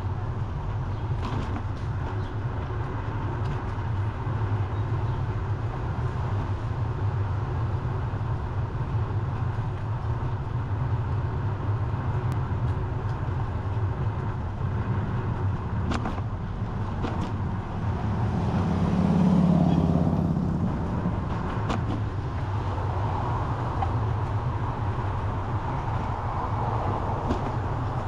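Steady wind noise on the microphone and road noise while cycling along a street with traffic; a motor vehicle passes about two-thirds of the way through, swelling up and fading away.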